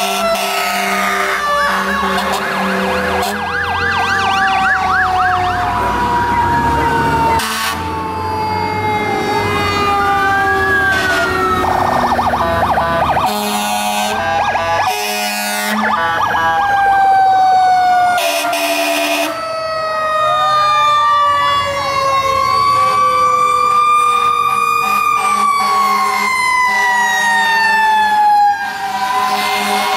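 Several fire trucks passing one after another with their sirens going: electronic wail and fast yelp sweeps overlapping a mechanical siren that winds slowly down, with several short horn blasts along the way.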